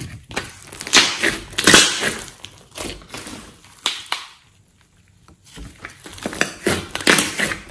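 Thick clay-mixed slime being stretched, folded and squeezed by hand, giving sticky crackling and squishing in uneven bursts, with a short lull about halfway through.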